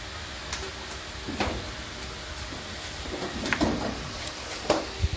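Scattered clinks and knocks of tools and metal parts being handled, about six in all, over a steady background hum.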